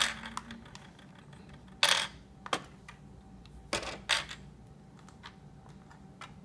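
Handling of a plastic fashion doll against a toy camper: a series of short plastic clicks and knocks, the loudest right at the start, about two seconds in and twice around four seconds in.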